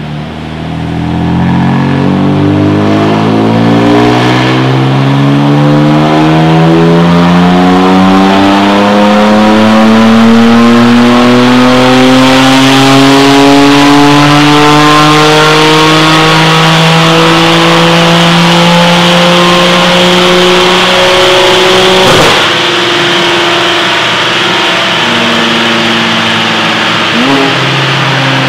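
BMW M3 F80's twin-turbo six-cylinder engine on a chassis dyno, making a long full-throttle pull with its note rising steadily in pitch for about twenty seconds. Then there is a sharp pop, and the note drops and holds lower.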